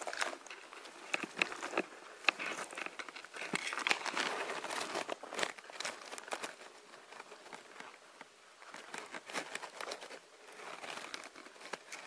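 Leaves and small twigs rustling and crackling at close range as branches of a dense bush are pushed aside, with many small snaps; busiest about three to six seconds in.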